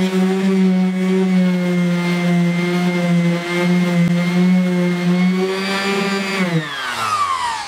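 Corded electric random orbital sander running steadily as it sands body filler on a steel door panel. About six and a half seconds in it is switched off and its whine falls in pitch as it spins down.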